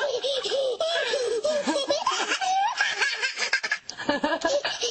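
High-pitched hearty human laughter, in rapid bursts throughout.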